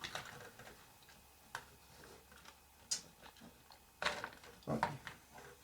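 A few light clicks and knocks of the plastic housing of an airsoft M249 box magazine being handled and lifted apart, spaced out at about one every second or so.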